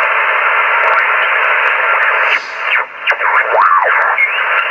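Yaesu FT-857D receiving 40 m lower sideband through its speaker: steady band hiss for about two seconds, then a garbled, mistuned single-sideband voice whose pitch slides up and down as the dial is tuned down across a station.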